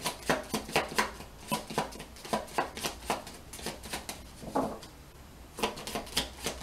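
A deck of cards being shuffled by hand: quick, crisp card slaps about three to four a second. There is a short pause about five seconds in, then the shuffling starts again.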